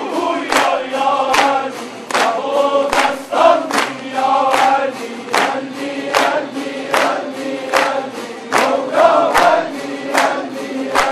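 Crowd clapping in time, about two to three claps a second, while many voices sing together over a steady low tone.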